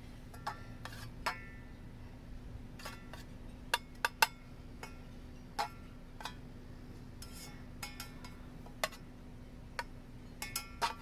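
Black plastic slotted spatula tapping and scraping in a stainless steel saucepan as it pushes butter around the pan. The result is scattered light clinks, some with a short metallic ring, and a couple of louder knocks about four seconds in.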